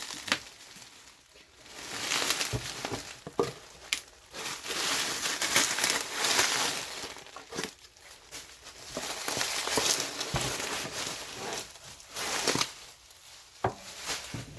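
Packing material being crumpled and pulled off a wooden soap cutter, in several bursts of rustling with a few light knocks.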